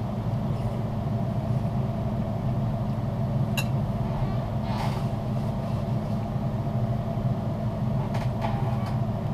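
Steady low mechanical hum, with one sharp click a little past three and a half seconds in.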